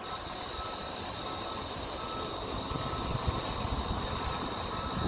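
Fire engine's diesel engine running at low idle outside its station bay, a steady rumble under a constant high hiss. A car passes in the second half, lifting the level.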